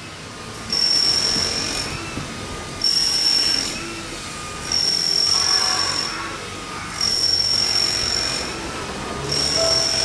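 A high mechanical whine switches on and off about every two seconds. Near the end a Japanese level-crossing warning alarm starts ringing in quick repeated strokes as the crossing's red lights begin flashing.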